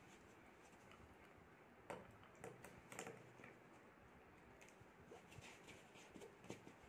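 Near silence: faint room tone with a few light, irregular clicks and taps.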